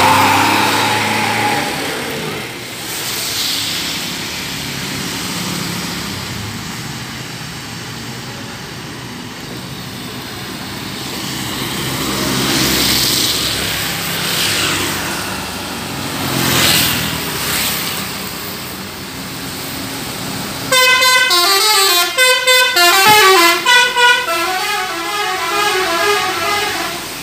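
Traffic passing on a wet road, with swells of tyre noise and engine hum as vehicles go by; then, about 21 seconds in, a bus's basuri musical air horn plays a tune of several changing tones for about five seconds.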